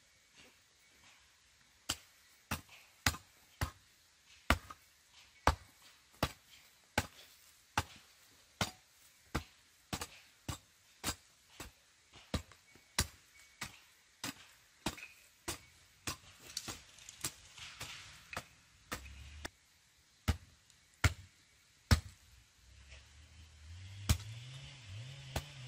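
Steady chopping with a hand tool, sharp blows about two a second, beginning about two seconds in. A low wavering drone comes in near the end.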